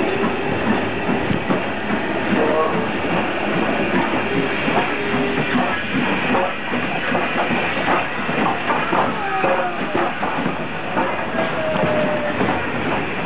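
Strasburg Rail Road No. 90, a 2-10-0 Decapod steam locomotive, running past close alongside. Steam sound mixes with the clatter of its running gear and its wheels on the rails, with many short knocks.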